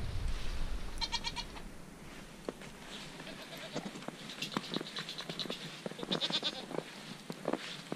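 Dairy goats bleating: three high, wavering calls, the first about a second in and two more in the second half. Under them, footsteps crunch in snow.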